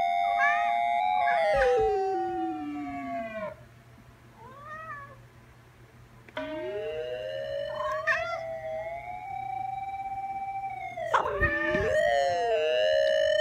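Electronic synthesizer playing long held tones that glide in pitch. A held note slides steadily down and fades about three seconds in, a few short arched calls sound in the quiet gap, and then a tone sweeps up into a long held note that wobbles near the end.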